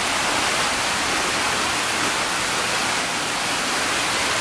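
Steady, loud rush of falling water from an indoor waterfall feeding a large aquarium display.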